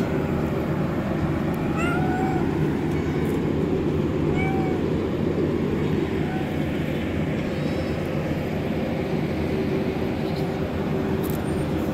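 Tabby cat meowing for food: several short, arching meows about two seconds apart over a loud, steady low rumble of engines or traffic.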